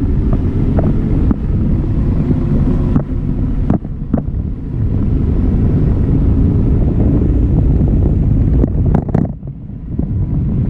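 Wind buffeting a camera microphone on a parasail in flight: a loud, low rumble with a few brief knocks.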